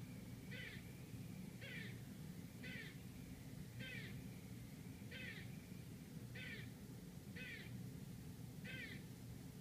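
Eastern gray squirrel barking: a short harsh call about once a second, eight in a row, over a steady low hum.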